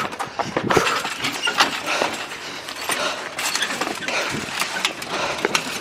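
Hurried footsteps scuffing and crunching over debris, with scattered clinks and knocks.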